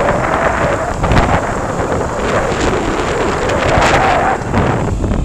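Wind buffeting the microphone, with the whine of a DJI Mini 2 drone's propellers underneath, dipping and rising in pitch twice as the drone manoeuvres.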